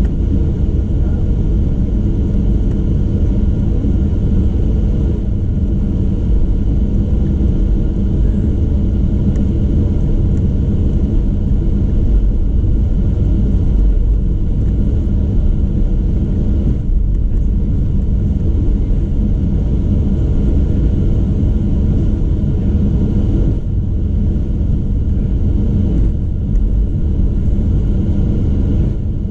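Cabin noise aboard a Boeing 737-800 taxiing, its CFM56-7B turbofans at taxi power: a steady low rumble heard from inside the cabin.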